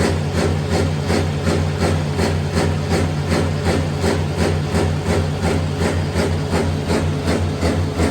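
A machine or engine running steadily with a low hum and a regular knocking clatter about three times a second.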